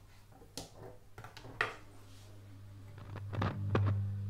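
Loewe-Opta Magnet 3737W valve radio's loudspeaker giving a steady low mains hum with scattered clicks and crackles, and no station coming through on FM. The hum gets louder about three seconds in.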